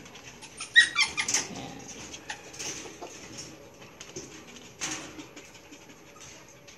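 Belgian Malinois puppies in a pen: a brief high-pitched puppy yelp about a second in, followed by scattered light clicks and scrabbling, with one sharper knock near five seconds.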